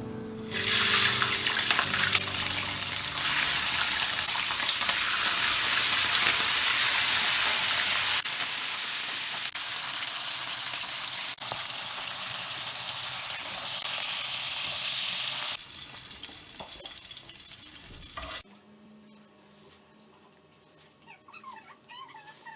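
Running water, a steady loud rush like a tap running full, starting about half a second in and cutting off abruptly near the end.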